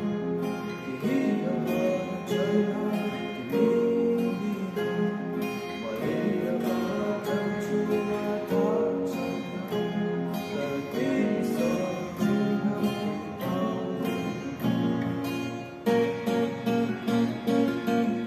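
Two acoustic guitars played together, strummed and picked chords, with a boy's voice singing along.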